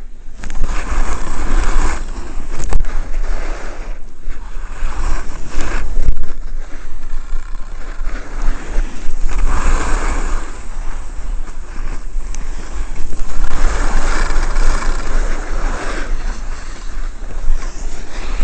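Wind buffeting the microphone of a skier moving downhill, with skis scraping over packed snow; the noise swells and fades every few seconds.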